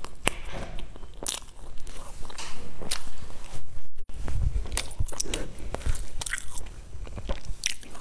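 A person biting into and chewing a sesame-topped, cream-filled bun, heard close up: scattered sharp crunchy clicks among the chewing.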